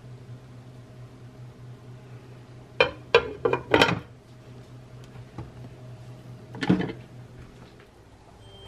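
Glass lid of a Cuisinart 3-in-1 slow cooker clinking and knocking against the cooker's rim as it is set back on. There is a quick cluster of four knocks about three seconds in and one more near seven seconds.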